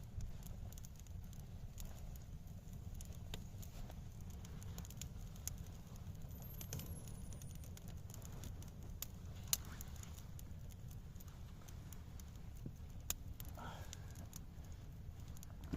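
Campfire crackling: scattered small pops and two sharper snaps, over a steady low rumble.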